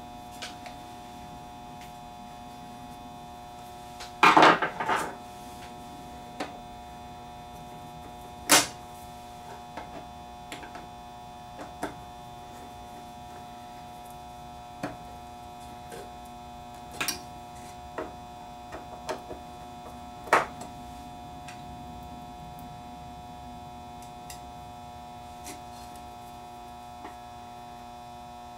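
Scattered clicks and knocks of a screwdriver and metal parts being handled inside the open chassis of a Teac A3340 reel-to-reel deck, the loudest cluster about four seconds in, over a steady electrical hum.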